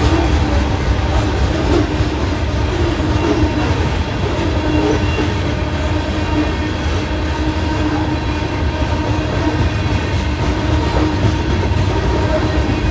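A freight train's coal hopper cars rolling past at a crossing: a steady, loud rumble of wheels on the rails.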